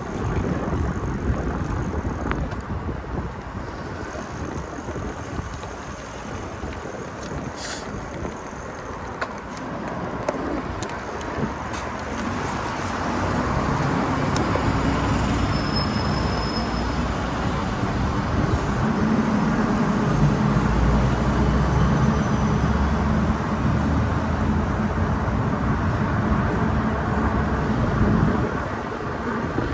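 Wind rushing over the microphone with road noise while riding a bicycle, a steady rumbling hiss that grows louder about halfway through.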